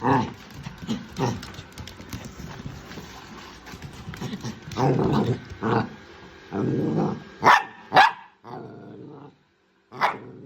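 A pet dog barking and growling in repeated bursts, with two sharp, loud barks about two-thirds of the way in.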